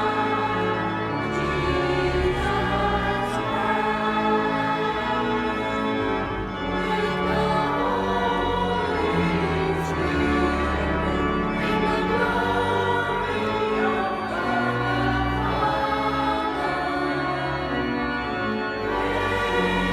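Choir singing slow, sustained chords.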